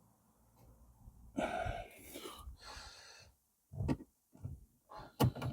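A long breathy exhale from a person working in close, then several short clicks and knocks as small screws and plastic dashboard trim are handled.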